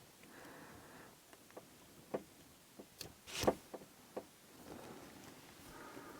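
Faint clicks and scrapes of a lock pick and tension tool working the pins inside an Abus 72/40 padlock: a few scattered clicks, the loudest about three and a half seconds in.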